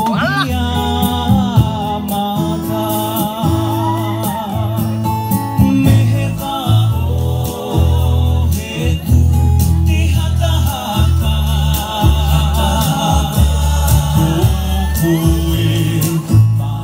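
Background music: a song with a singing voice over a steady bass line.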